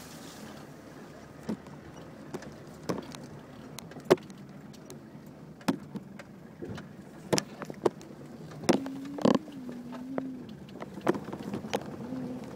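Daihatsu Fourtrak 4x4 creeping over rough off-road ground, heard from inside the cab: a steady low engine hum with scattered sharp knocks and rattles as it bumps along, the loudest knock about four seconds in.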